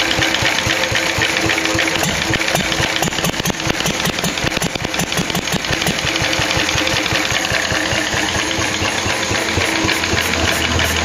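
Vintage 1945 Lister D single-cylinder stationary engine, a reverse-rotation petrol build with coil ignition, running steadily with a fast, even firing beat. Music comes in near the end.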